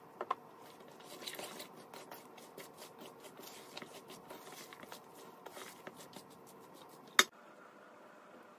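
A hand squishing and mixing wet pakora batter with shredded vegetables in a stainless steel bowl, with many small clicks and scrapes. A single sharp click about seven seconds in is the loudest sound.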